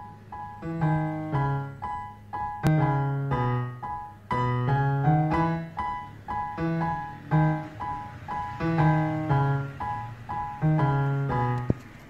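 Background piano music: a slow melody of separate struck notes over held low notes.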